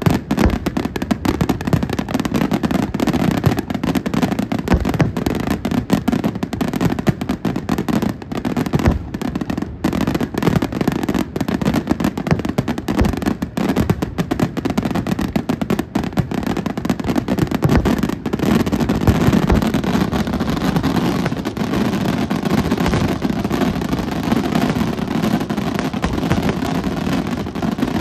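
Professional aerial fireworks: shells bursting in a dense, unbroken barrage of bangs and booms, many at once.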